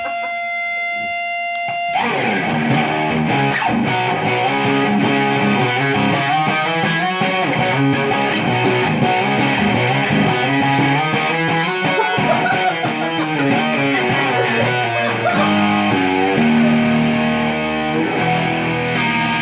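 Guitar music, likely an electric guitar: a held steady note, then from about two seconds in a busy run of picked notes.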